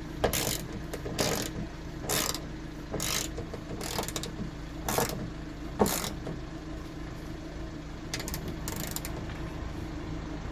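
Socket ratchet wrench being worked in short strokes, each a brief rattle of clicks, about eight over the first six seconds and two more near the end, tightening the mounting bolts of a new gas boot strut.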